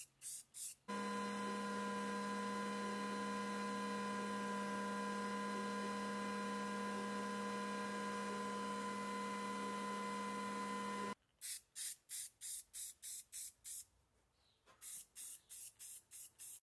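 Short, even spurts from an aerosol spray-paint can, about three a second. About a second in they give way to a steady hum with several steady tones from a Glowforge laser cutter running for about ten seconds. The hum cuts off suddenly, and the short spray spurts resume.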